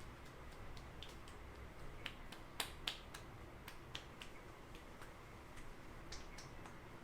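Hair cracking during a head massage: a string of faint, sharp, irregular snaps as tufts of hair are pulled and twisted between the fingers. The loudest two come about two and a half to three seconds in.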